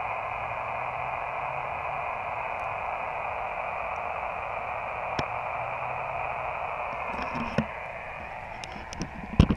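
Elecraft KX2 transceiver receiving on the 20 m sideband frequency 14.335 MHz with no station answering: a steady, narrow-band hiss of band noise. The noise floor is high, reading S7. A few knocks near the end.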